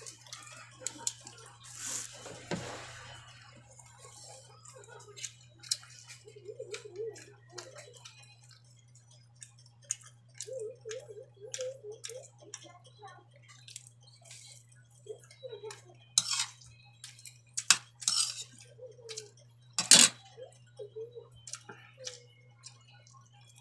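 Eating utensils clinking and scraping against a plate during a meal, as scattered sharp clicks, the loudest near the end, over a steady low hum.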